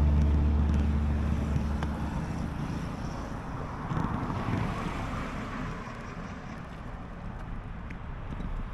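Background music fading out over the first second or two, leaving wind rushing over the microphone and road noise from riding.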